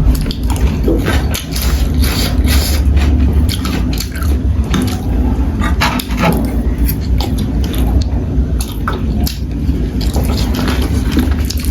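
Close-up eating sounds of spicy noodles: wet chewing, slurping and lip smacks in quick irregular clicks, over a steady low hum.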